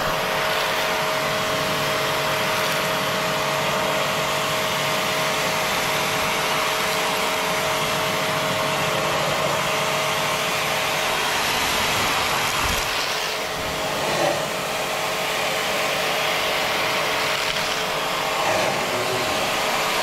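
Pressure washer running steadily, its water jet hissing against the finned coil of a window air conditioner, with a faint motor hum underneath.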